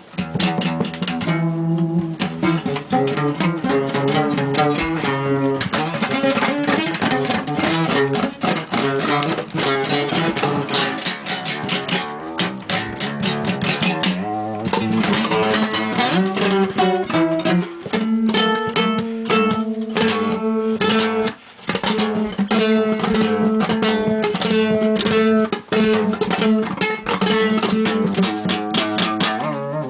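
Five-string nylon-string acoustic guitar, tuned to A's, played as a solo improvisation: fast plucked notes, settling after about 18 seconds into a repeated figure over a ringing low drone.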